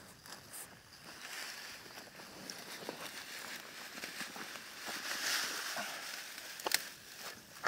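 Dry cereal straw sheaves rustling and crackling as they are pushed into place and roped onto a pack load, with a couple of sharp clicks near the end.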